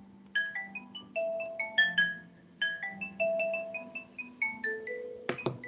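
Marimba sound from a software sound library playing a short melodic run of struck notes, each ringing briefly and fading. Two sharp clicks come near the end.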